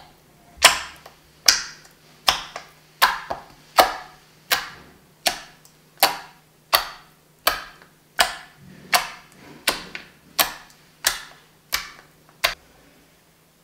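Clear water slime being pressed and poked flat against a wooden tabletop by hand, a sharp sticky squish at each press, about one every three-quarters of a second. The presses stop about a second before the end.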